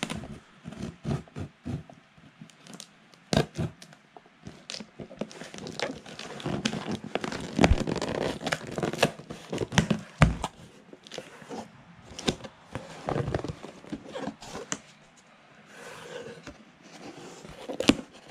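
A knife cutting and scraping along the packing-taped seam of a cardboard shipping box: tape tearing and cardboard crackling in irregular strokes, thickest about halfway through, with a few sharp knocks.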